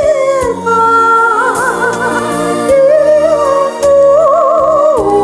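A woman singing a slow Chinese ballad in long held notes with a wide vibrato, over a steady instrumental backing. The melody steps down in pitch near the end.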